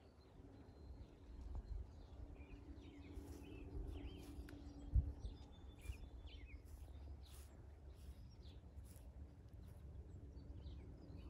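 Birds chirping and calling with short, scattered notes over a faint low rumble and a steady background hum, with a single low thump about five seconds in.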